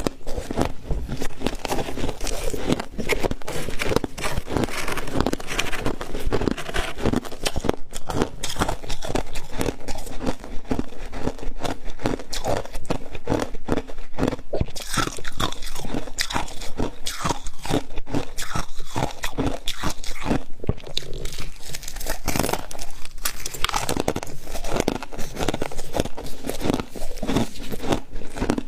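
Mouthfuls of soft freezer frost being bitten and chewed close to the microphone, a dense run of irregular crunching.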